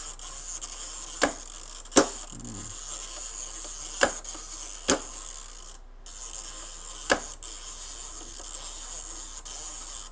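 Sharp plastic clicks from a Panasonic mechanical 24-hour timer switch being set by hand, as its dial is turned and the segment pins are pushed in or out. There are five separate clicks a second or more apart, over a steady hiss.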